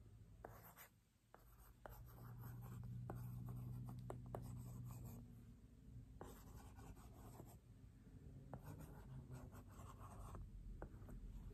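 Stylus writing on an LCD writing tablet's screen: faint scratching strokes with small taps of the pen tip, and a low hum for a few seconds in the first half.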